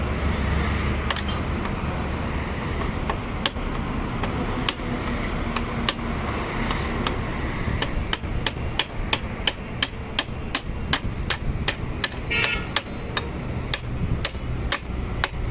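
Hammer blows on a motorcycle wheel and tyre during a tyre change, sharp strikes with a slight ring. A few come spaced out at first, then a quick, even series of about three a second from about halfway in.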